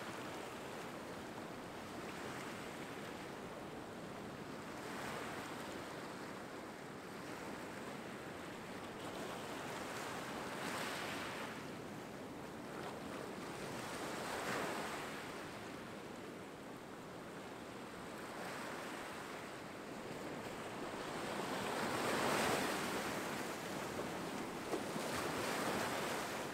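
Surf on a rocky sand beach: small waves breaking and washing up the shore, swelling and fading every few seconds, with the biggest wash late on.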